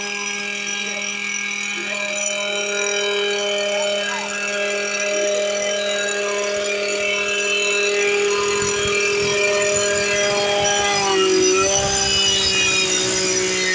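Small two-stroke engine of a Stihl FS 120 brush cutter, fitted with a tiller attachment, running at steady high speed while cultivating soil; its pitch sags briefly about 11 seconds in as it takes load, then recovers. A second steady engine note runs underneath.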